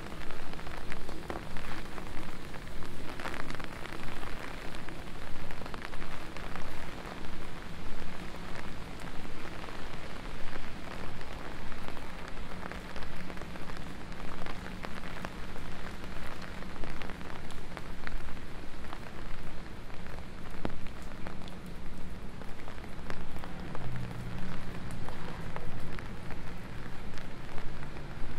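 Steady rain falling on wet street surfaces, with footsteps on the wet pavement at a walking pace, about two steps a second. A low hum comes in about halfway and is strongest a few seconds before the end.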